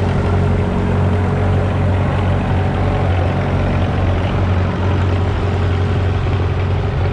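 1965 Claas Columbus combine harvester's 1.8-litre four-cylinder diesel engine running steadily at a constant speed, a low, even drone.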